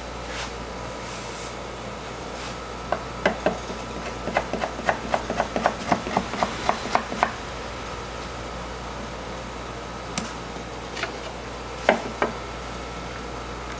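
A knife chopping on a cutting board: a quick run of sharp knocks, about four a second, then a few scattered knocks, over a steady hum.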